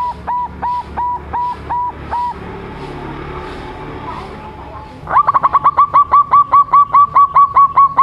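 Young zebra dove (perkutut) cooing: a series of short, clear notes, each rising quickly and then held, about three a second for the first two seconds. After a pause of about three seconds, a faster series starts about five seconds in, beginning with a quick run of notes.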